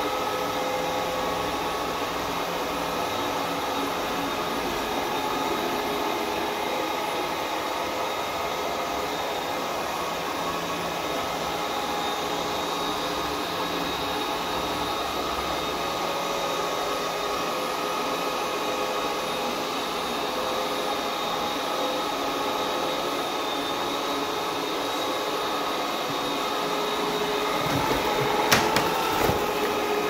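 Ecovacs Deebot 901 robot vacuum cleaner running a cleaning pass, its suction fan and brushes whirring steadily with a faint whine as it drives around. A few sharp knocks come near the end.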